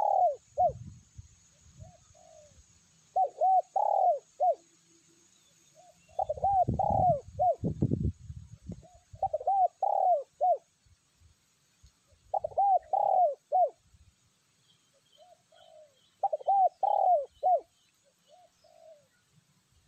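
Spotted dove cooing: phrases of three or four rising-and-falling coos repeated about every three seconds, with softer single coos between them. A low rumble comes in briefly about seven seconds in, and faint rapid high chirps come near the end.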